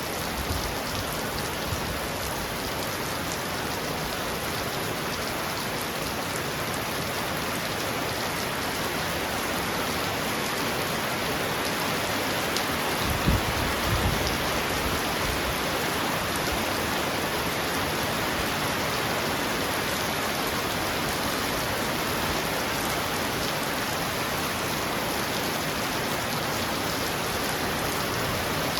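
Heavy rain falling steadily on a roof, a dense even hiss, with a brief low thump about halfway through.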